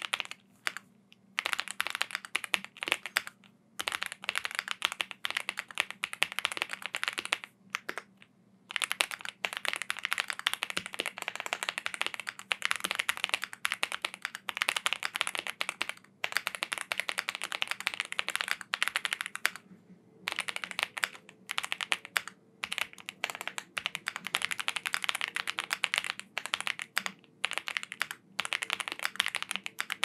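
Fast typing on a Mammoth 75 mechanical keyboard fitted with Aurora series Fog White switches: dense runs of key clacks lasting several seconds, broken by short pauses.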